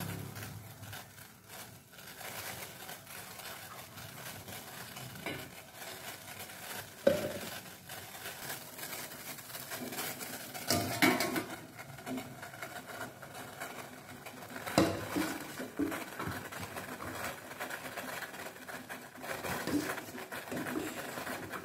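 Stainless steel plate-idli steamer: the perforated steel plate clinking and knocking against the steel pot a few times, the sharpest about a third of the way in, over a steady hiss of water coming to the boil in the pot.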